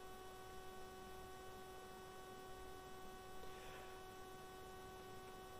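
Near silence: room tone with a faint, steady electrical hum, one constant tone with its overtones, over light hiss.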